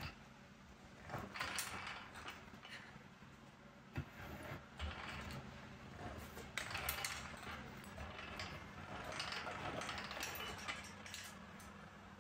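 Geared jewellery rolling mill turning, its spur gears meshing and grooved steel rollers squeezing a gold rod, with rough grinding and scattered clicks in uneven spells.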